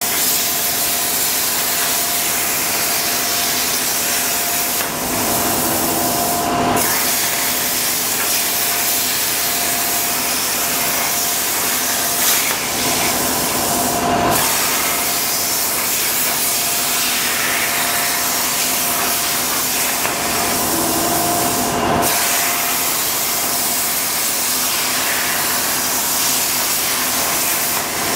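CNC plasma cutter torch cutting 1.8 mm stainless steel sheet: the plasma arc gives a steady loud hiss with a faint steady tone under it. The hiss breaks off briefly a few times, as the arc stops between cuts and restarts.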